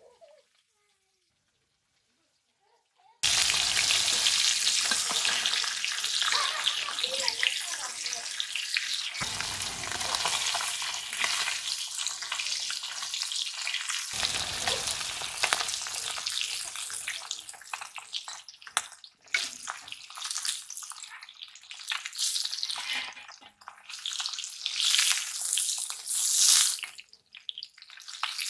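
Near silence for about three seconds, then rohu fish pieces rubbed with salt and turmeric sizzling loudly as they fry in hot oil in an iron kadai. The sizzle eases after about fifteen seconds into short bursts as a steel spatula stirs, scrapes and lifts the fish.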